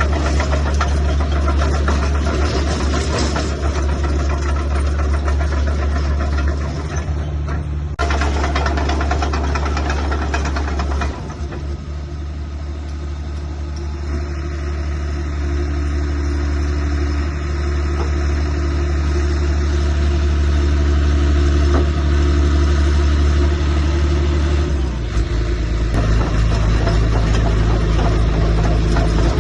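Diesel engine of a Caterpillar D3C Series III LGP bulldozer running steadily with a low hum. It breaks off briefly about eight seconds in, and its low note shifts a few seconds before the end.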